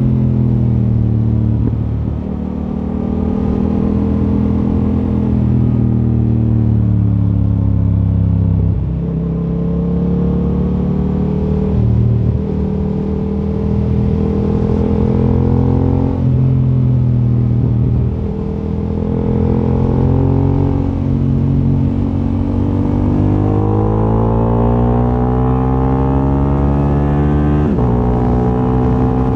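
Yamaha R7's parallel-twin engine on its stock exhaust, accelerating through the gears: the engine note climbs in pitch, then drops sharply at each upshift, several times over.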